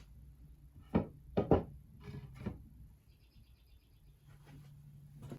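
A tabletop being set down and shifted into place on a wooden 2x4 support, giving a run of sharp knocks and thunks, the loudest about a second and a half in, then a single loud knock at the end.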